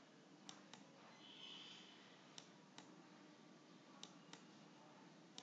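Near silence: room tone with faint, scattered clicks, about eight in five seconds, while a word is hand-written onto a digital slide with a pen tool.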